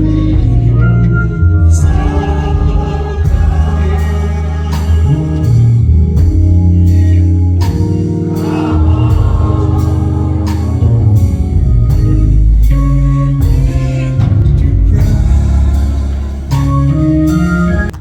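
Gospel music with singing over a band with a heavy bass line and regular drum hits.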